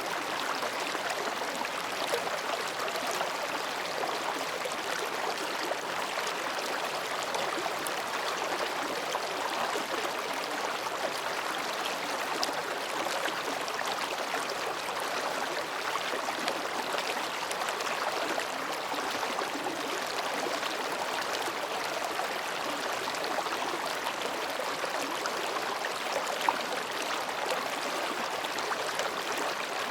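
A mountain stream flowing between rocks, babbling and splashing steadily, with a few brief louder splashes.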